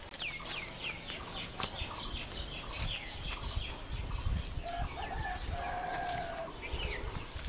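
Village chickens calling: a quick run of high, falling chirps over the first three seconds, then a longer drawn-out call about five seconds in, over a low rumble.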